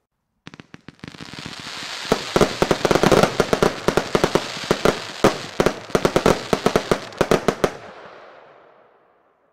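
El Gato Tifon 50-shot 20 mm firework battery firing in a rapid volley. A few launch cracks come about half a second in, then dense, quick bangs of bursting shells over a steady hiss and crackle. The firing stops near 8 s and the hiss dies away.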